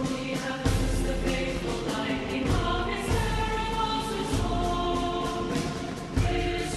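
Choir singing with orchestral accompaniment, held chords moving slowly. Deep thumps stand out about a second in and again near the end.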